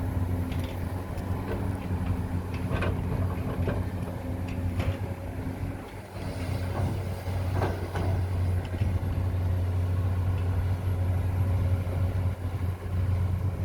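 Excavator working: a steady low engine drone with scattered clanks and knocks. The drone dips briefly about halfway through.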